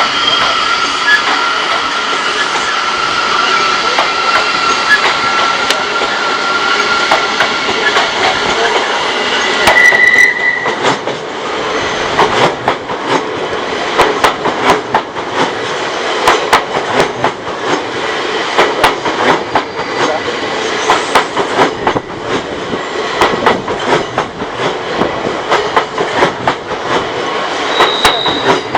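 Odakyu electric train rolling slowly over a level crossing. Its wheels squeal steadily for about the first ten seconds, with a brief sharper squeal about ten seconds in, then give way to a long run of irregular clattering knocks as the wheels cross the rail joints.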